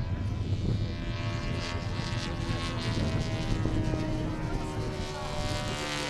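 Saito FA-200R3 three-cylinder radial four-stroke engine of a radio-controlled September Fury racer running in flight overhead. It is a steady engine drone whose pitch shifts slightly as the plane moves.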